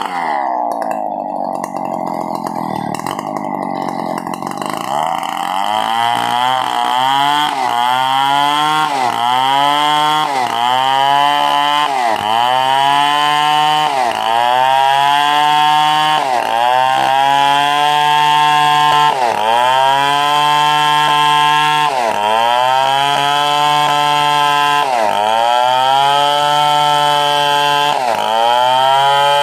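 Stihl two-stroke chainsaw running under load while cutting a coconut palm trunk into planks. Its pitch sags in a long dip over the first few seconds, then dips and recovers again about every second and a half as the cut bites.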